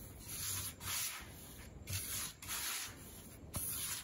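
A hand rubbing and scraping rice flour mixed with ghee against the inside of a stainless steel bowl, in repeated hissing strokes roughly once or twice a second.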